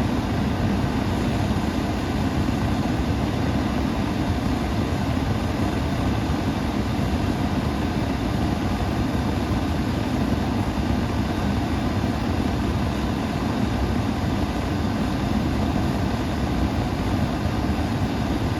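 Gas forge burning at 3 psi with a forced-air blower feeding it, air valve wide open: a steady, loud rushing noise, heaviest in the low range.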